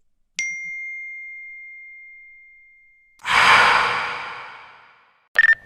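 Separate sound effects in turn: a single high ding that rings out and fades over about three seconds, then a long breathy sigh that fades over about two seconds, and a short sharp click near the end.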